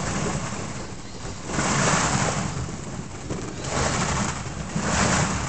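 Plastic ball-pit balls rustling and shifting against each other, swelling three times as they are stirred.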